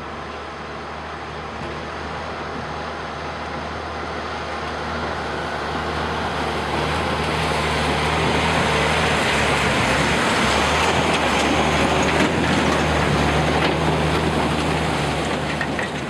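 Mack Superliner road train's diesel engine pulling steadily through a flooded river crossing, with water rushing and splashing around its wheels. The water noise builds over the first half and stays loud until near the end.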